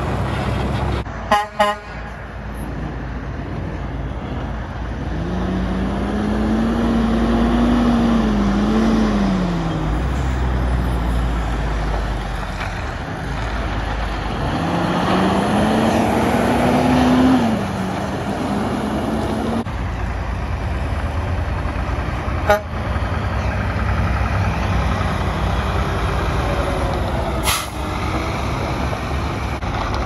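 Heavy diesel semi trucks pulling away from a stop, the engine pitch rising and then dropping through gear changes twice as each truck accelerates. Two short horn toots about a second and a half in, and two sharp clicks later on.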